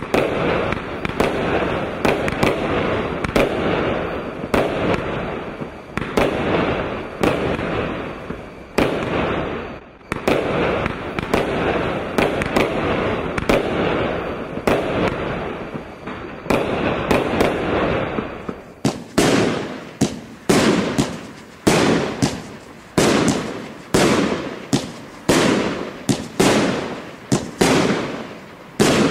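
Fireworks firing shot after shot, each shot rising and bursting with a bang. The bangs come thick and overlapping at first, then from about two-thirds of the way through as sharper separate bangs, about one and a half a second.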